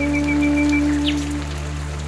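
Soft background music: one long held flute-like note that fades out about a second and a half in, over a steady hiss of rain.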